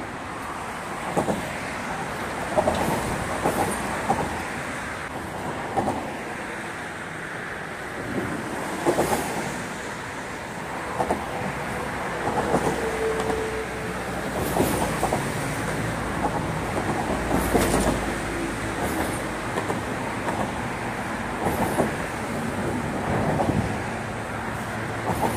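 Road traffic running steadily across a bridge, with repeated sharp knocks and thumps as vehicles pass.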